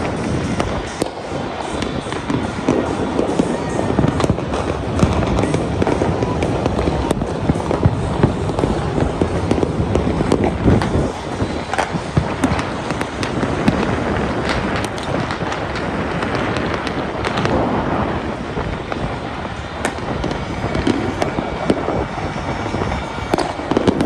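Many fireworks going off at once across a city: a dense, continuous run of bangs and crackles with no break.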